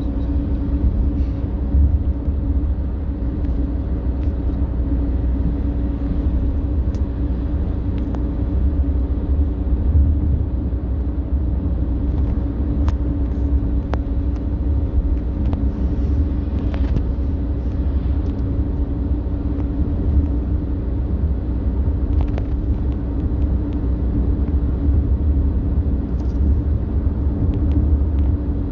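Cabin noise of an Audi Q5 2.0 TDI four-cylinder diesel cruising on the open road: a steady low rumble of engine and tyres, with an even drone above it.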